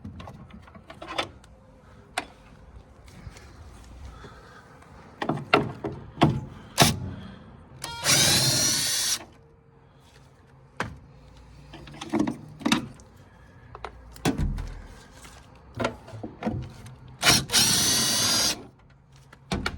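Power screwdriver running in two short whining bursts, each about a second long, backing out the screws that hold a furnace's inducer motor assembly. Clicks and knocks of metal parts being handled come between the bursts.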